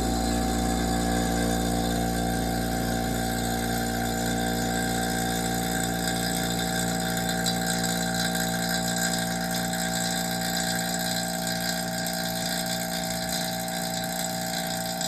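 Electric vacuum pump running steadily, evacuating a homemade vacuum furnace chamber; it pulls down quickly, which is taken as the sign of a good seal. It gets slightly quieter in the last few seconds.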